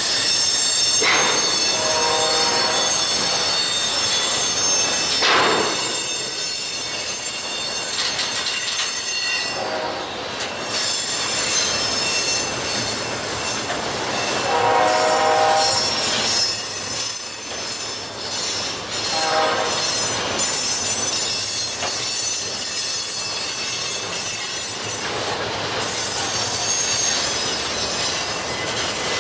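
Steel wheels of a passing intermodal freight train squealing against the rail through a sharp curve: a steady high-pitched ringing, with lower squeals that swell and fade several times.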